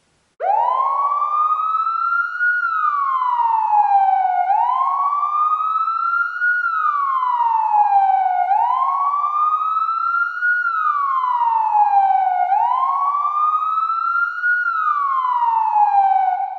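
Police siren on a slow wail, its pitch gliding up over about two seconds and back down over about two more, four full rise-and-fall cycles, starting about half a second in and fading out at the end.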